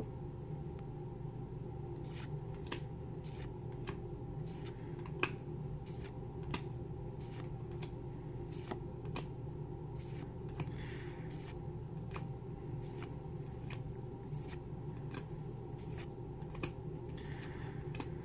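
Magic: The Gathering cards being flicked through one by one in the hand: short light clicks and slides as each card is moved to the back of the stack, about one or two a second, over a steady low hum.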